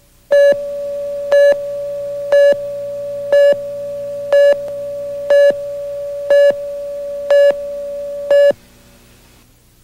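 Broadcast tape countdown leader: a steady mid-pitched tone with a louder beep once a second, nine beeps in time with the countdown numbers. It cuts off about a second before the end.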